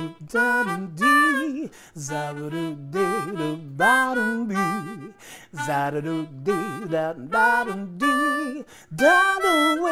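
Theme music: a melody of short notes, many bending in pitch, played continuously.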